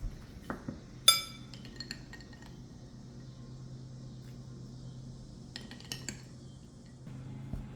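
Kitchen dishes clinking: one bright, ringing clink about a second in, a few lighter clinks just after it, and another short cluster of clinks near six seconds, over a steady low hum.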